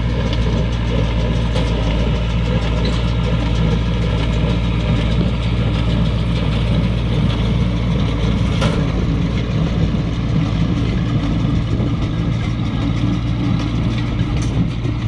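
An engine running steadily at an even speed, a constant low drone with no change in pitch.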